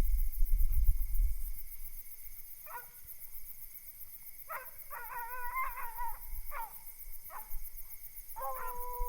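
Coonhounds baying on a hot raccoon chase: a few short chopped bawls, then a long drawn-out bawl held on one pitch near the end.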